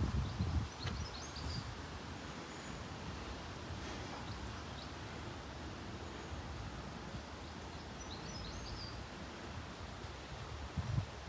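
Quiet outdoor background noise with a few faint bird chirps, about a second in and again near the end. Wind buffets the microphone briefly at the start.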